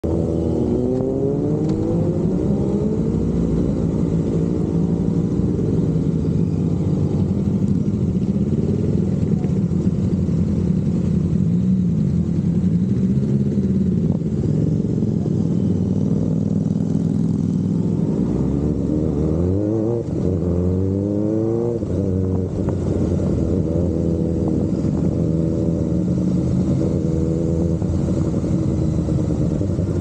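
Kawasaki ZX-4RR's 399 cc inline-four engine running under way, its pitch climbing and dropping as it is revved and shifted through the gears, most sharply about twenty seconds in.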